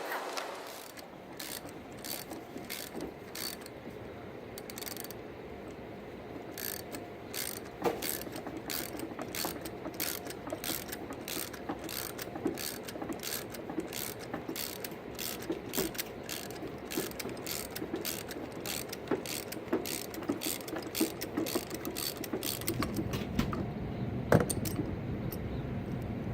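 Ratchet wrench clicking stroke after stroke as it turns the forcing screw of a gear puller to draw the stuck AC compressor pulley off. A low rumble comes in near the end.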